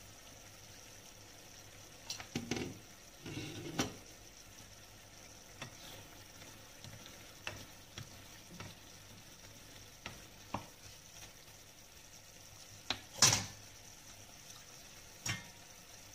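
Pork pieces simmering in sauce in a non-stick frying pan with a faint steady sizzle, while a spatula stirs, scraping and knocking against the pan in scattered short strokes, the loudest knock late on.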